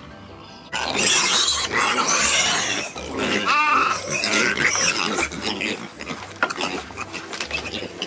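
Hungry pigs squealing loudly at feeding time, the squeals coming in suddenly about a second in.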